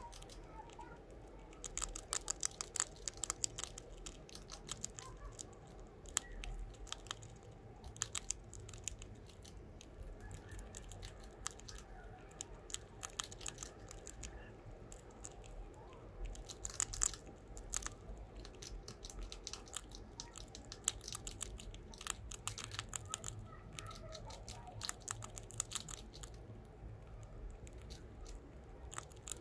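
A rat gnawing and chewing a crunchy cheese snack: quick runs of small crisp crunches and clicks, with short pauses between the runs.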